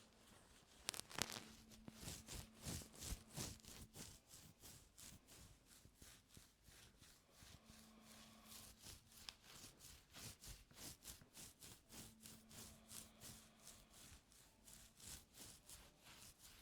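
Ear-cleaning tool working close to the ear canal: quiet, quick, repeated short scratching and rubbing strokes, a few a second, with a sharper click about a second in.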